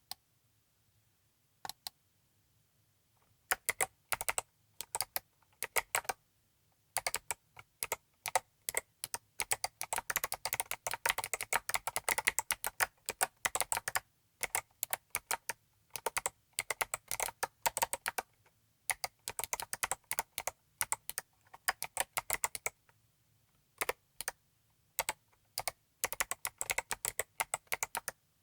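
Typing on a Saturn 60 mechanical keyboard with Midnight Jade (recoloured Box Jade) clicky switches on a yellow zinc steel plate, under MT3 PBT keycaps. A couple of lone keystrokes come first, then fast runs of sharp clicks from about three seconds in, broken by short pauses.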